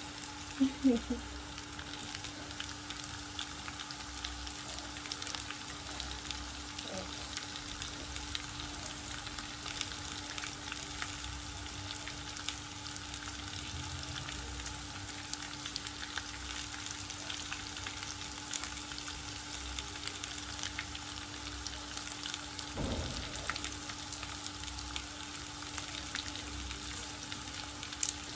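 Diced potatoes and onions frying in a pan, a steady sizzle with fine crackling.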